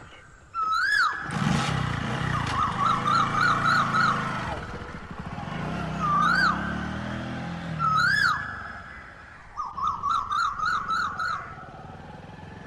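Motorcycle engine starting up and pulling away, its pitch rising and then falling off. Birds call over it throughout in quick rising-and-falling chirps and short trills.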